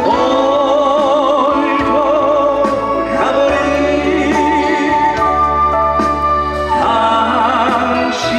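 Live trot song from a backing band, with a melody of long held notes wavering in vibrato over steady bass.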